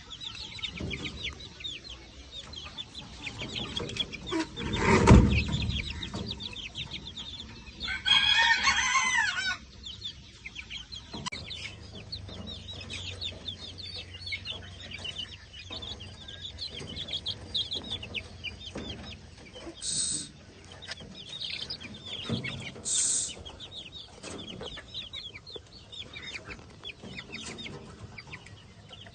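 A flock of chickens clucking and chattering with many short high calls, and a rooster crowing once for about a second and a half, about eight seconds in. A loud low thud about five seconds in.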